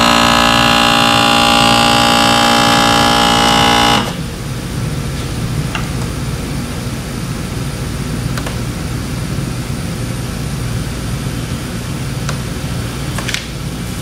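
A home vacuum sealer's pump drawing the air out of a large bag, running with a loud droning whine of several tones. The whine cuts off suddenly about four seconds in, leaving a quieter steady hum with a few faint clicks.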